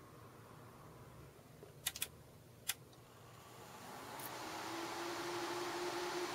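Three sharp clicks, then the cooling fans of a 600 W LED plant grow light start up: a whir that rises over a couple of seconds and settles into a steady hum with a clear tone.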